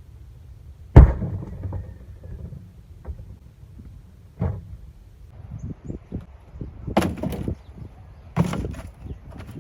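A refrigerator cabinet struck by a heavy dumbbell swung on a rope. A loud slam comes about a second in, then three lighter bangs spread over the rest.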